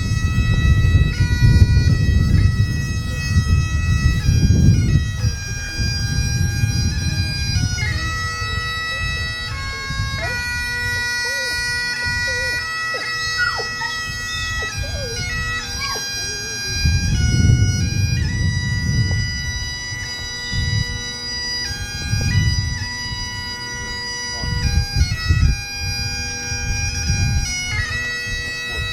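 Bagpipes playing a slow melody of long held notes over their steady drone. Bursts of low rumble come and go underneath, strongest in the first few seconds.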